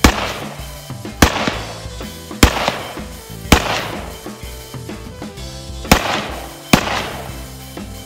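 Six single shots from an AR-15 rifle, fired one at a time at uneven intervals, each a sharp crack that dies away quickly. Background music with drums plays underneath.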